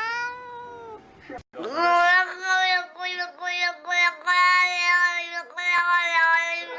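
A cat's drawn-out meow that rises and falls in pitch, ending about a second in. After a brief silence comes a high, childlike voice singing Chinese words in held, steady notes, phrase after phrase.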